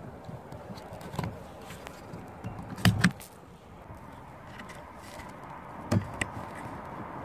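A few sharp plastic clicks and knocks from hands working clips and connectors inside a car door, the loudest a quick double click about three seconds in and another near the end.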